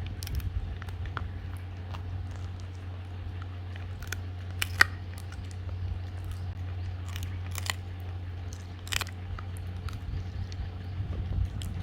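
Dog chewing a dried pig ear, with scattered sharp crunches and cracks; the loudest comes a little under five seconds in. A steady low hum runs underneath.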